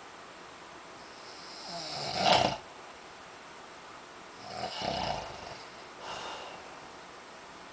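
A man snoring in his sleep. A loud snore builds up and cuts off sharply about two seconds in, followed by two softer snoring breaths.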